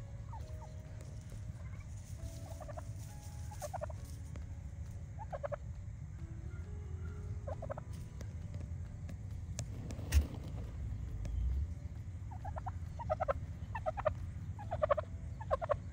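Tom turkey gobbling now and then, short rattling gobbles spaced a couple of seconds apart, then a quick run of gobbles in the last few seconds. A single sharp knock about ten seconds in is the loudest moment.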